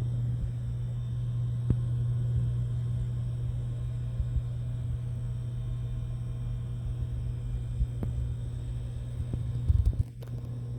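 Steady low hum or rumble with a few faint clicks; it drops away near the end.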